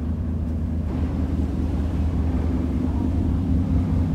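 Ferry's engine running with a steady low rumble.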